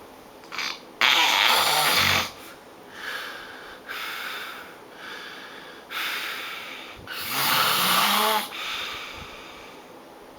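A person snoring loudly in a series of harsh, rasping snores. The two longest and loudest come about a second in and about seven seconds in, the later one with a wavering buzz, and quieter breathy snores fall in between.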